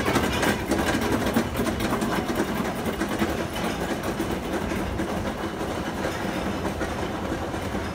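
Roller coaster train climbing its chain lift hill: a steady, rapid clicking clatter of the lift chain and the anti-rollback ratchet.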